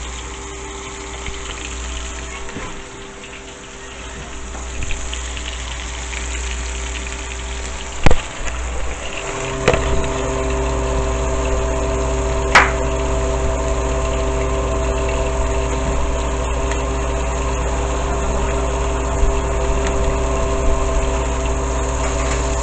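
Steady electric hum of a kitchen appliance motor over a hiss, growing louder about nine seconds in, with a few sharp clanks of cookware or utensils, the loudest about eight seconds in.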